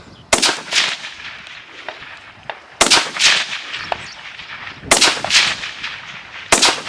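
Rifle shots fired in pairs about half a second apart: three pairs, then another shot near the end, each a sharp crack with a short echo.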